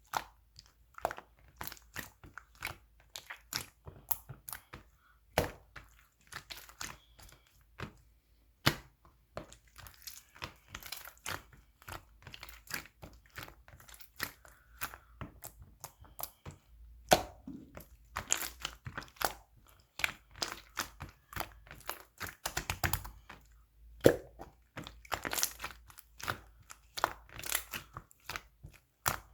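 Clear slime being squeezed and worked by hand, giving a dense run of sharp, irregular crackling clicks and pops, several a second, with a few louder pops.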